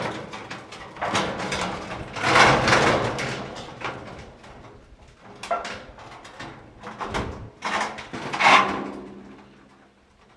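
Hand building work with wood: an irregular run of knocks and scraping, with longer scrapes about two seconds in and again near eight seconds.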